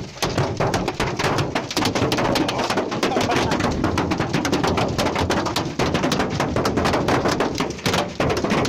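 Precipitation pelting a hard surface: a dense, continuous clatter of many small impacts, easing briefly near the end.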